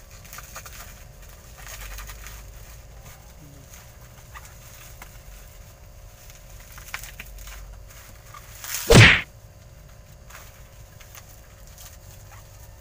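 Sealed plastic parcel wrapping being pulled and worked at by hand, rustling faintly, with one loud, short rip or crinkle of the plastic about nine seconds in.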